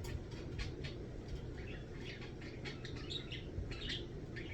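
Pet bird chirping: a quick, uneven run of short high chirps and clicks, with a couple of longer twittering notes about three and four seconds in.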